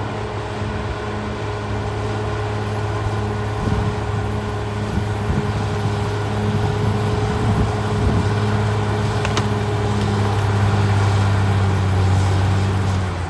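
Diesel engine of a Caterpillar D6R XL bulldozer running at a steady speed, with a few low knocks about four to eight seconds in and a single sharp click a little after nine seconds.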